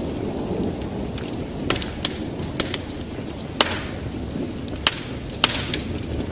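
Wood fire burning in a fireplace: a steady low roar of the flames with irregular sharp crackles and pops, a few of them trailing a brief hiss.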